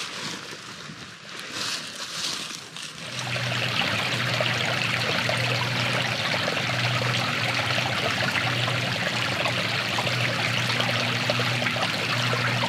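Small woodland creek trickling and running steadily, much louder from about three seconds in.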